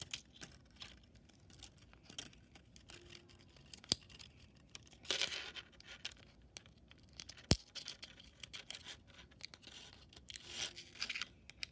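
Scissors cutting thin plastic from water-bottle pieces: scattered rasping snips, with a few sharp clicks.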